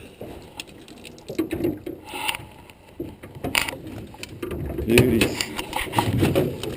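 Irregular clicks and knocks of fishing tackle and boat being handled while a walleye is landed, with no steady rhythm.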